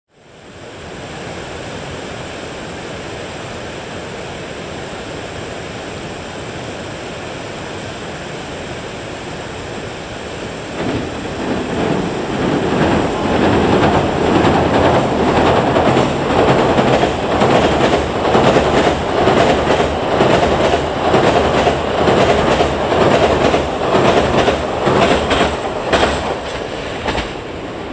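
E001 series 'Train Suite Shiki-shima' passenger train passing, its wheels clattering over the rail joints. A steady rush swells about eleven seconds in into a loud, dense clatter of wheel clicks that lasts some fifteen seconds, then drops away just before the end.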